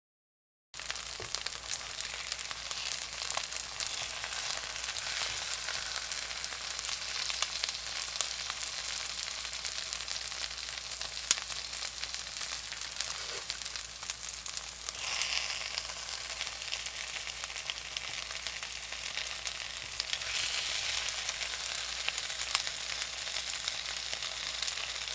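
Food sizzling and crackling in a hot frying pan, a steady hiss starting about a second in, growing louder for stretches, with one sharp click about eleven seconds in.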